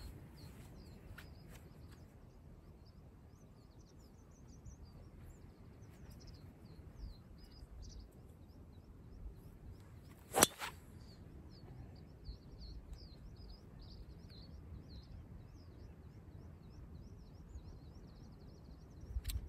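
A golf driver strikes a teed ball once, a single sharp crack about ten seconds in. Birds chirp throughout in the background.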